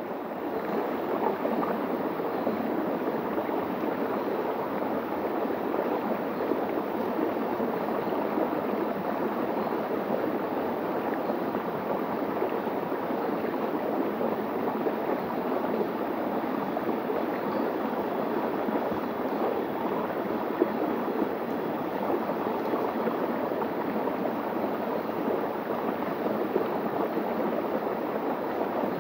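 Shallow stream running steadily over bare rock and through a small cascade.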